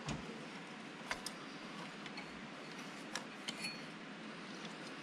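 Small plastic clicks and ticks from handling the fusing lamp's wire connector inside a digital press's fuser unit: a soft knock at the start, then a few scattered clicks about a second in and around three seconds, over a faint steady background.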